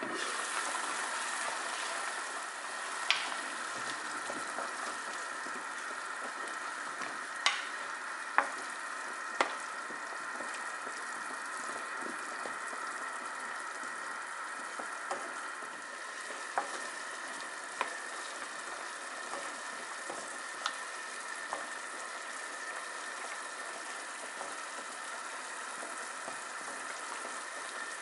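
Soy-sauce braising liquid bubbling and sizzling steadily around baby potatoes in a pan as the sauce reduces, with several sharp knocks against the pan, most of them in the first ten seconds.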